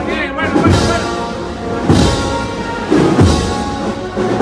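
A band playing a slow processional march: sustained wind chords, with a heavy drum stroke about every one and a third seconds.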